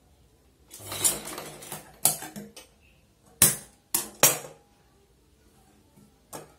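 Handling at a sewing machine: a short scraping, rustling stretch about a second in, then several sharp metallic clinks and knocks as metal parts and tools are moved on the machine.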